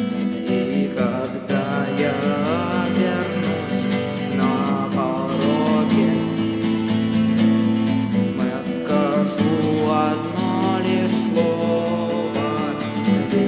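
Instrumental passage of a song: an acoustic guitar strumming steady chords, with a wavering melody line above them.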